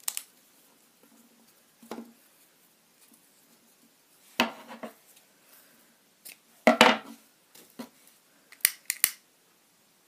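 Scissors cutting a length of ribbon: a few short, separate snips and rustles, the loudest about seven seconds in, with a couple of sharp clicks near the end.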